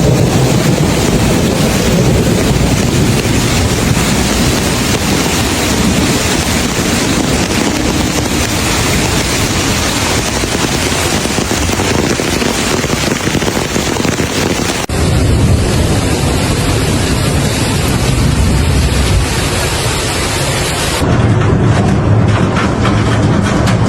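Heavy hailstorm with rain: a loud, dense, steady hiss of falling hail and rain with low rumbling underneath. The sound changes abruptly twice, about fifteen and twenty-one seconds in.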